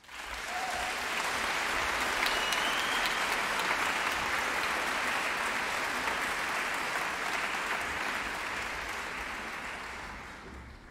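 Audience applauding in a concert hall, starting abruptly and dying away near the end.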